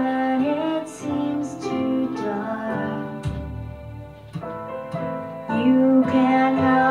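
A song: a voice singing a melody over instrumental backing.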